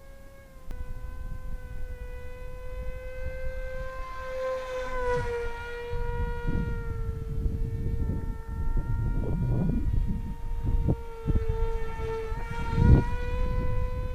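Electric-motor propeller of a small RC flying wing whining in flight: one steady high tone that swells and dips slightly in pitch about five seconds in and again near the end, as the plane passes. Gusts of wind noise on the microphone rumble underneath from about halfway.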